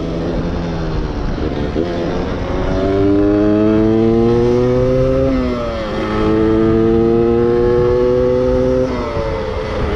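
Stock 1994 Yamaha DT125R two-stroke single under way. Its engine note climbs steadily, dips sharply about halfway through and climbs again, then dips once more near the end.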